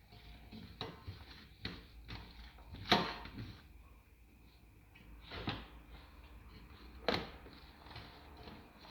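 Several sharp knocks and clacks of hard objects being handled, the loudest about three seconds in and two more near five and a half and seven seconds.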